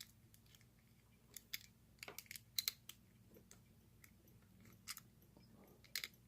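Faint, scattered small metal clicks and scrapes of lock picks working inside a Yale lever padlock, a regular pick pushing up on the levers while a broken pick tensions the bolt; the clicks bunch together about two seconds in and again near the end.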